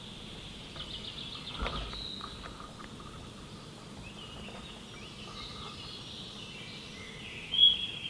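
Rural outdoor ambience: a steady high-pitched insect drone with birds chirping, a louder call near the end, and a single dull knock about a second and a half in.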